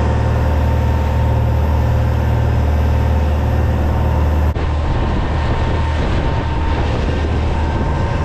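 A fishing boat's engine running steadily at speed, a deep even drone under the rush of water along the hull and wake. There is a brief break about four and a half seconds in.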